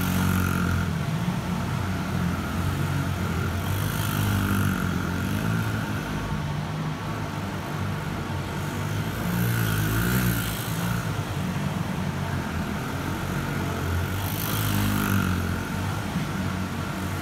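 Small mini motorcycle (pit bike) engine running continuously, revving up and easing off as the bike is ridden through tight turns. It swells louder about every four to six seconds.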